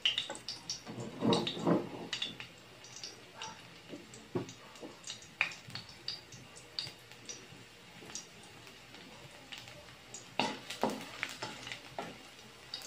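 Chopped garlic sizzling gently in a little oil in a metal wok, with a slotted spatula scraping and tapping the pan in irregular strokes as it is stirred.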